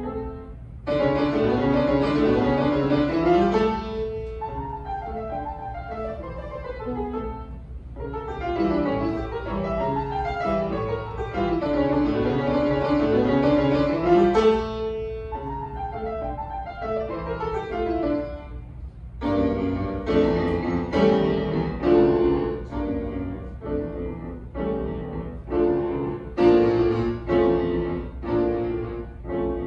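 Solo grand piano: flowing runs of notes that sweep up and down for most of the passage, then, from about two-thirds through, a string of strongly struck chords, several a second.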